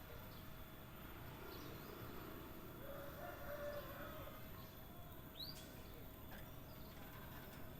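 Sparse, faint bird calls: a few soft chirps, a distant low crowing call about three seconds in, and one short sharp whistled note about five and a half seconds in.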